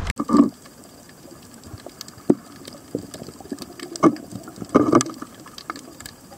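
Muffled underwater sound: a low hush broken by scattered clicks and a few short bubbling gurgles, the largest about halfway through.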